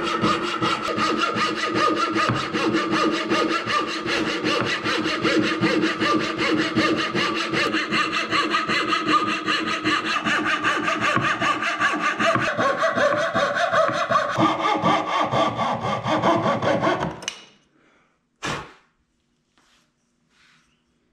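Coping saw cutting a curve through a cherry board, fast, steady back-and-forth strokes that stop about seventeen seconds in as the cut is finished. A single sharp knock follows a little later.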